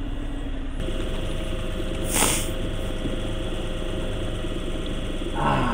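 A boat engine running steadily at low trolling speed, a constant hum, with a short rush of noise about two seconds in.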